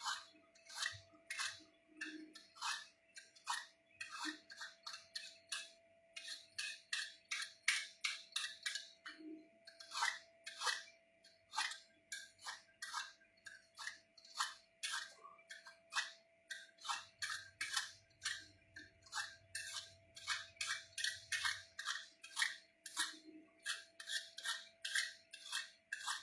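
Quick, repeated short scraping strokes from food preparation, about two to three a second in an uneven rhythm. A faint steady hum runs underneath.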